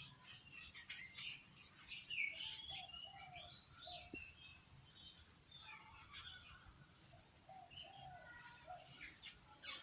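Steady high-pitched insect chorus, like crickets, with scattered short bird chirps and warbling calls over it.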